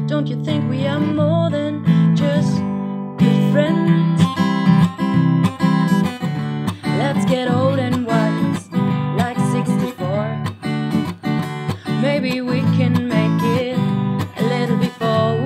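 Acoustic guitar strummed with a woman singing over it; held chords at first, then a busier, steady strumming rhythm about three seconds in.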